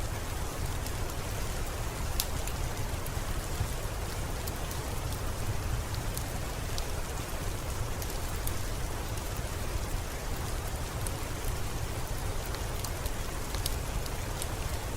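Steady rain falling, with scattered sharp crackles of a wood fire.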